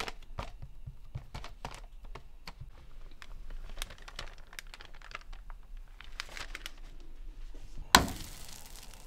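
Parchment paper crinkling and rustling in a series of sharp little crackles as flattened dough is pressed and peeled off it. Near the end, one loud thump as the dough is laid into a frying pan, followed by a steady hiss.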